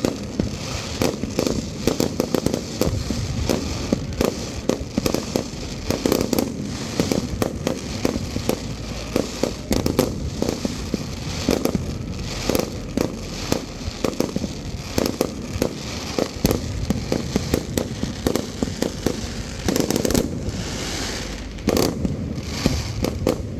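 Aerial fireworks display: a dense, unbroken run of shell bursts and bangs with crackle, many reports a second.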